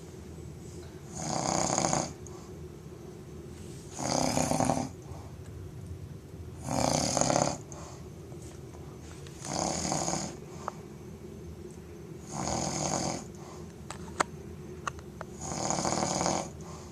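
A person snoring loudly: six snores, one about every three seconds, each a rough rasping breath lasting under a second. A few brief clicks come between snores in the second half.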